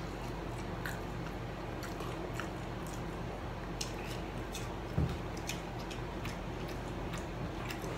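Chicken nuggets being chewed and eaten: small wet clicks and mouth smacks scattered throughout, over a steady low hum, with a dull thump about five seconds in.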